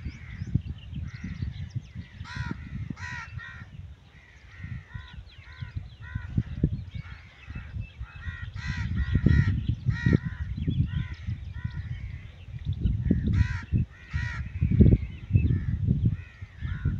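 Birds calling over and over in short, harsh notes, several at a time, over a low gusting rumble.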